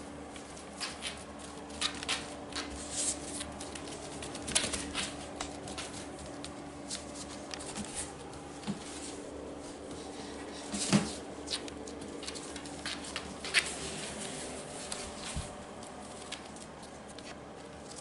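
Corgi puppy's paws and claws pattering and scrabbling on foam floor mats as it plays, in irregular quick taps with a few louder knocks. A faint steady hum runs underneath and stops about three-quarters of the way through.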